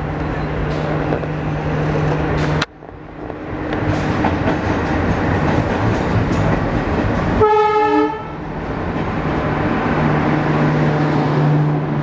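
Diesel locomotive engines droning with the rumble of a train moving through the station. The sound drops suddenly about two and a half seconds in, then the drone of twin WDG3A Alco diesel locomotives hauling an express builds. One short horn blast sounds about seven and a half seconds in.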